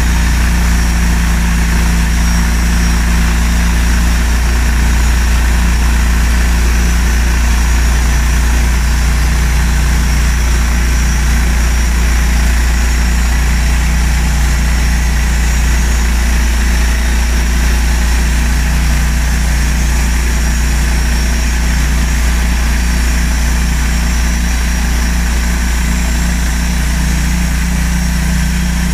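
Large band sawmill running steadily, its motor and band blade cutting through a spruce log in a loud, even drone.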